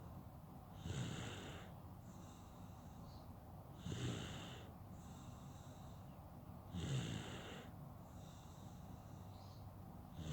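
A sleeping baby snoring: a snore about every three seconds, four in all, with softer, hissy breathing between them.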